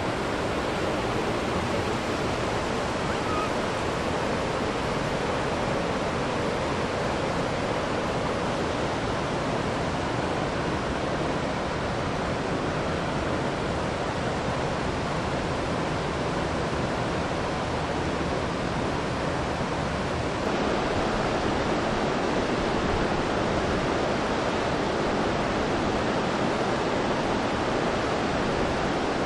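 Steady rush of flowing water from a mountain stream or river, an even hiss with no breaks; it grows slightly louder about twenty seconds in.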